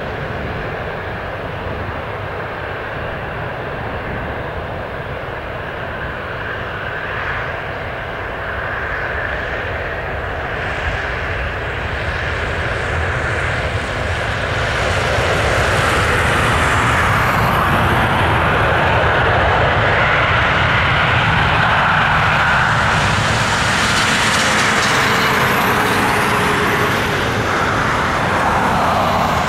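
Airbus A320 airliner's jet engines during touchdown and landing roll on a wet runway. It is a steady roar that grows louder about halfway through and stays loud as the aircraft rolls past closer by.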